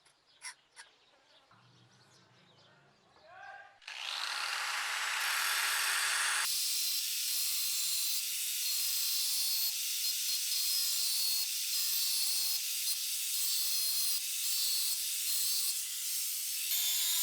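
An electric power tool spins up about four seconds in and then runs steadily under load with a hissing grind, the motor pitch dipping slightly now and then, working the leaf-spring steel. Before it starts there are only a few faint clicks.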